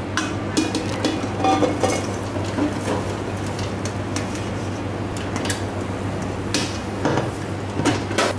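Popcorn poured from a popcorn machine's tipped stainless kettle into a steel bowl, with scattered clinks and rattles of metal on metal as the kettle and bowl are handled, over a steady low hum.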